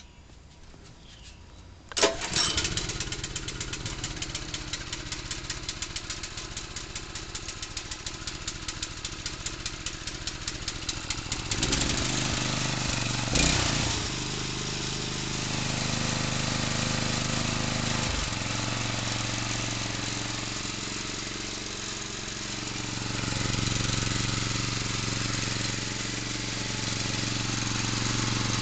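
Engine of a 1957 Simplicity Wonder Boy riding mower starting about two seconds in, then running at a slow, even beat. Partway through it picks up speed and runs on steadily, its level rising and falling.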